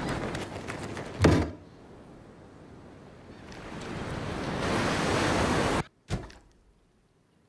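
A rushing noise like surf is broken by a loud thump about a second in. The rush then swells again, cuts off suddenly, and a second thump follows just after.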